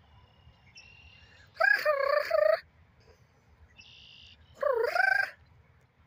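Canada goose honking: two loud, drawn-out calls a few seconds apart, each about a second long with a wavering pitch. Fainter, higher calls from a red-winged blackbird come just before each honk.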